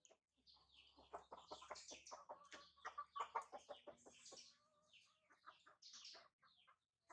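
Chicken clucking softly in a rapid run of short notes, about four or five a second, trailing off near the end.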